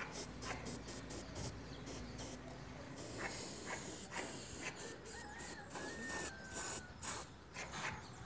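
Rustling and scraping handling noises, a string of short scratchy sounds, with a brief hiss about three seconds in.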